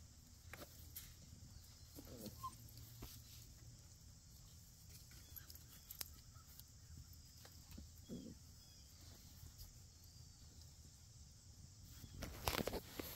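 Faint rustling and small scattered sounds of puppies moving about on grass, with a brief louder rustle near the end.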